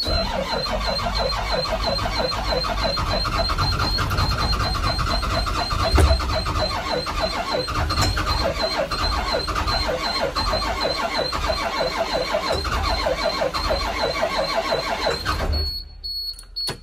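Starter cranking a cold Caterpillar C7 diesel in a steady, even rhythm for about fifteen seconds without it catching, then stopping suddenly. The engine has not been plugged in to its heater. A high-pitched warning buzzer sounds over the cranking, its tone dipping with each stroke.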